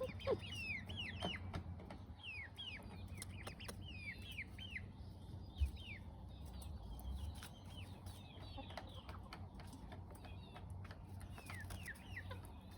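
Young chickens peeping: many short, high chirps that fall in pitch, coming in quick runs, with scattered faint clicks and a single dull thump about halfway through.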